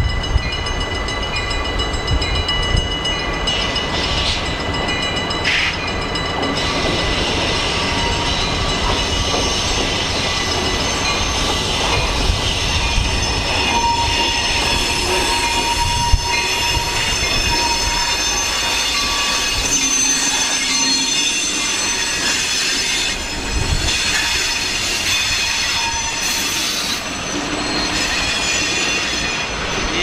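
Two EMD diesel locomotives, Escanaba & Lake Superior SD40-2 503 leading GP38 402, running light as they approach and pass close by: a steady engine rumble with high, steady wheel-on-rail squeal over it.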